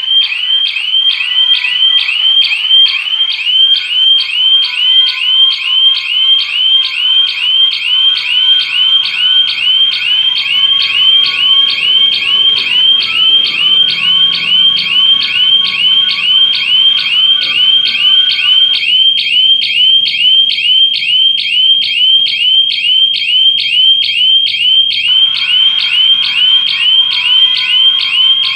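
Siren of a homemade GSM burglar alarm going off non-stop: a shrill chirp that sweeps upward and repeats about three to four times a second. It signals a detected security breach, a door shutter opened while the system was armed.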